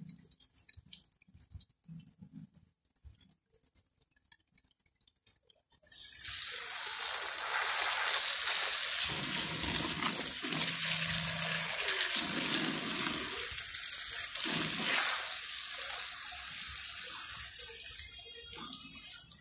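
Water from an outdoor brass tap gushing and splashing onto a car battery and the concrete drain below. It starts suddenly about six seconds in after a few faint clinks, runs steadily for about ten seconds, then eases off near the end.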